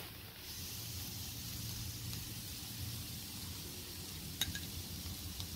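Cauliflower rice frying in oil in a hot pan, a steady sizzle with a low hum beneath it. There are a couple of light clicks about four and five seconds in.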